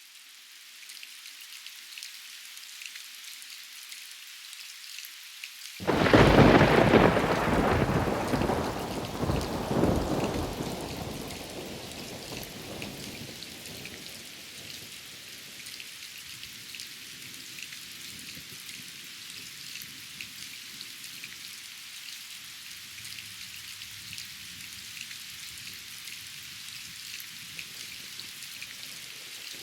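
Steady rain pattering throughout, fading in during the first second. About six seconds in, a sudden loud thunderclap breaks and rolls on as a deep rumble, fading away over several seconds.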